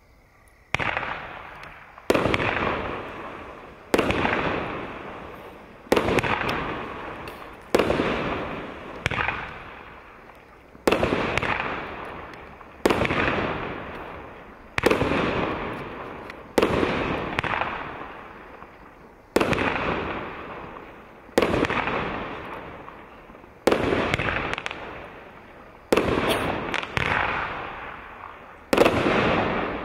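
Piromax PXB2203 16-shot, 30 mm firework cake firing its shots one after another, roughly every two seconds. Each shot is a sharp bang with a fading tail, and a few come in quicker succession near the end.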